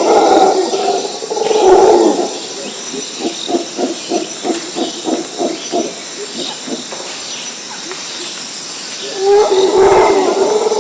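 Jungle ambience: a wild animal calls loudly at the start and again near the end, with a run of quick, evenly spaced hoots, about four a second, in between, over a steady high buzz.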